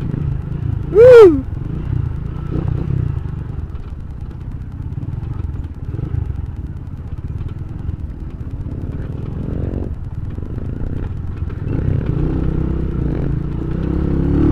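Honda Tiger single-cylinder motorcycle engine running while the bike rides over a rough dirt and stony track, with rattling and clattering from the bumps. About a second in, a short loud call rises and falls in pitch. The engine note climbs and grows louder near the end.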